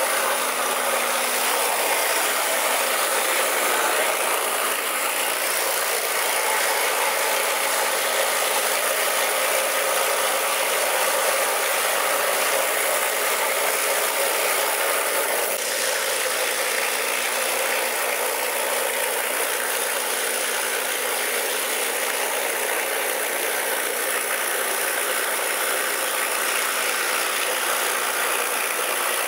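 Steel Eagle rotary surface cleaner running on a concrete floor: a steady, loud hiss of high-pressure water jets spinning under the hood, with a slight shift in tone about halfway through.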